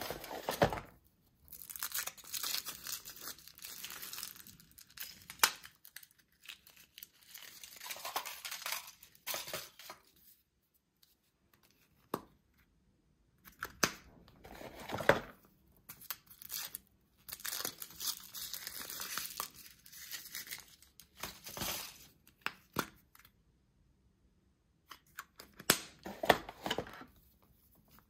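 Foil wrappers of Kinder Surprise chocolate eggs being torn and crinkled open by hand, in bursts of a few seconds with pauses between, and a few sharp clicks.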